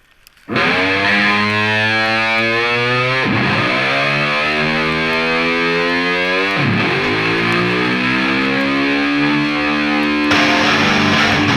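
Music: distorted electric guitar holding long sustained notes, whose pitch swoops down and back up about three seconds in and again near seven seconds, changing to strummed chords near the end.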